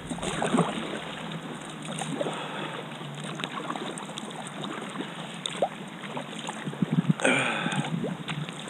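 Kayak paddle strokes in calm sea water: the blade dipping in and pulling through, with splashing and dripping off the paddle. A short pitched sound comes about seven seconds in.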